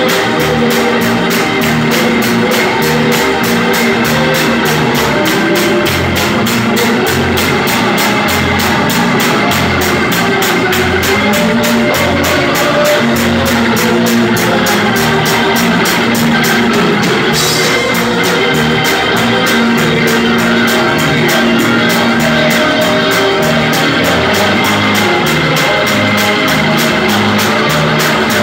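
Live church band playing an upbeat gospel song: an electric organ leads over a drum kit and bass guitar, with a steady fast beat and a repeating bass line.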